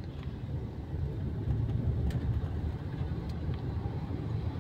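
Steady low rumble, like background traffic or room noise, with a couple of faint clicks.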